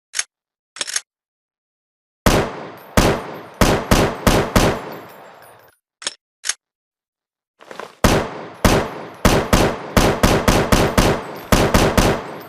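AR-7 assault rifle sound effect: a pair of short metallic clicks, then a burst of about seven shots with a long echoing tail. Two more clicks follow, then a longer burst of about a dozen shots in quick succession, each trailing into reverberation.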